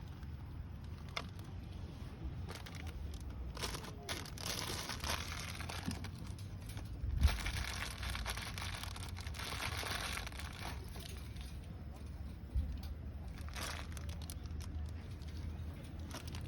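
Crinkling and rustling handling sounds in several stretches, with one sharp thump about seven seconds in.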